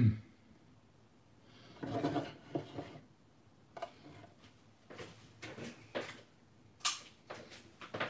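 Stainless steel serving dish slid and turned on a wooden chopping board: a short scrape about two seconds in, then scattered light knocks and clicks of handling.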